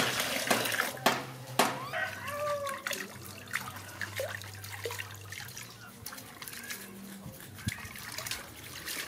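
Water pouring from a stream into a plastic tub, loudest in the first second, with a few sharp splashes. Then quieter splashing and sloshing as a baby monkey is washed in the tub and water is scooped over its head.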